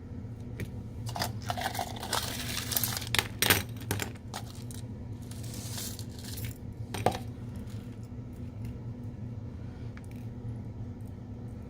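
Small metal screws and parts clinking and rattling in short clusters, with a single sharp click about seven seconds in, over a steady low hum.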